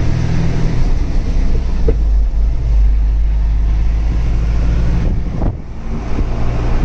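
BharatBenz truck's diesel engine running steadily under way on the highway, with a brief dip in its note about five and a half seconds in before it picks up again.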